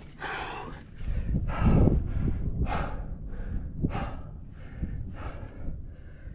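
A climber breathing hard in quick, sharp breaths, about one every half second, while straining on a difficult move.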